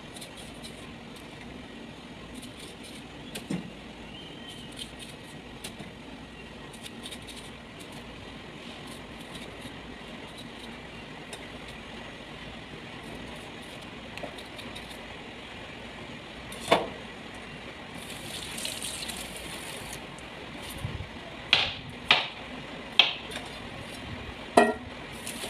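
Kitchen knife slicing bitter gourd over a metal bowl, with faint small clicks of the blade and pieces dropping in over a steady background hum. A sharp knock about two-thirds of the way through, a brief hiss soon after, and four sharp clinks near the end.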